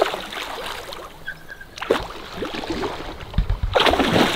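Water splashing in short bursts, about two seconds apart, with low thumps just before the loudest splash near the end.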